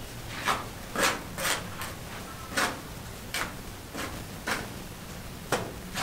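Masonry hand-tool work: a series of short, irregular scraping strokes of a trowel on mortar, about one or two a second.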